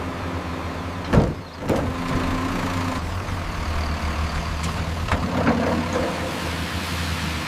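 Heavy truck engines running with a steady low rumble. There is a loud sudden hit about a second in and a smaller one half a second later.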